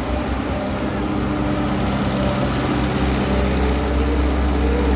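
Engine of a water-well drilling machine running steadily, a low hum with a steady engine note that gets a little louder about two seconds in.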